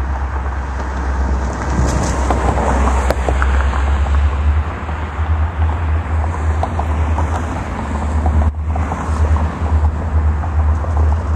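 Wind buffeting the microphone, a steady low rumble with gusts, over the sound of a diesel-hauled freight train approaching in the distance.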